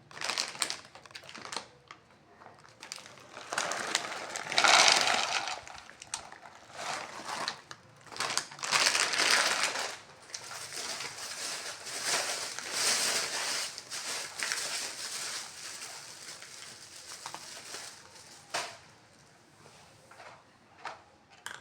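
A cat eating close up: irregular crunching and chewing, with louder stretches and pauses between mouthfuls.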